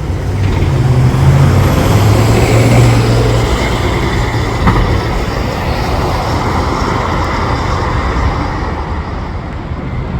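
New Flyer Xcelsior XD60 articulated diesel bus pulling away: a deep engine drone with a high turbo whistle, loudest in the first three seconds, then giving way to a rushing road noise that slowly fades as the bus moves off. A sharp click sounds about halfway through.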